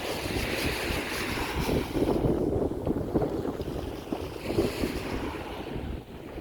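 Wind gusting across the microphone with surf washing on the beach underneath, a steady noisy rush that swells and eases.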